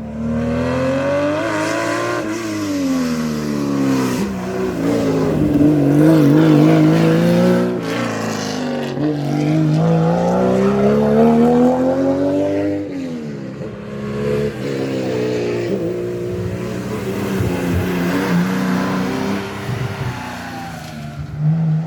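Rally car engine revving hard at full throttle, its pitch climbing and dropping several times as it changes gear and lifts off.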